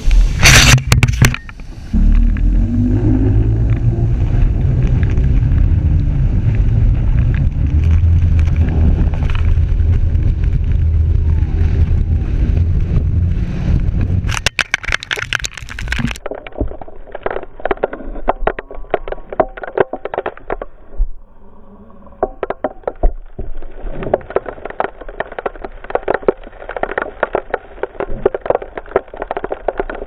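Speedboat's outboard motor running at speed. For the first half it is a muffled, steady low drone. After about fifteen seconds, wind and spray buffet the microphone with constant crackling.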